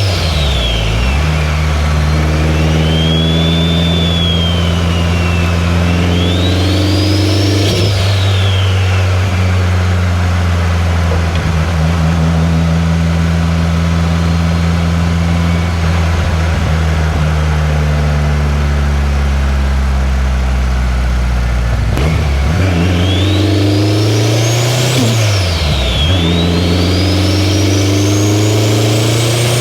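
2003 Subaru WRX's turbocharged flat-four engine pulling hard through the gears. A high whine rises with the revs, and the pitch drops sharply at each gear change: once about a quarter of the way in and twice near the end. In the middle it holds a steady cruise.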